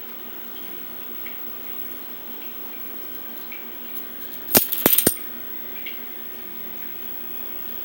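Three sharp clicks in quick succession, about four and a half seconds in, over a steady low hum, with a few faint ticks here and there.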